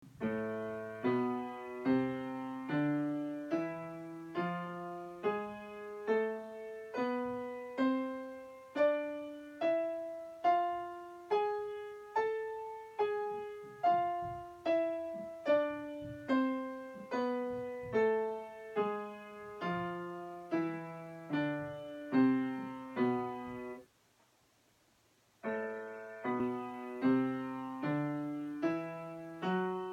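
Piano scale played slowly and evenly with both hands, about one and a half notes a second, climbing up and then stepping back down. It breaks off into silence for about a second and a half near the end, then a new scale begins.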